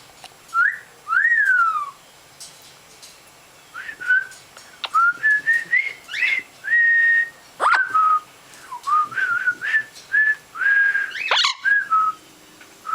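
Blue-fronted Amazon parrot whistling: two rising-and-falling whistles near the start, then a tune of short stepped notes that climb and hold, broken by a few sharp squawks.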